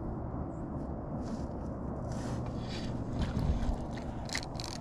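Shimano Vanford spinning reel being cranked to retrieve line, with irregular clicks and scrapes from handling the reel and rod, over a steady low rumble.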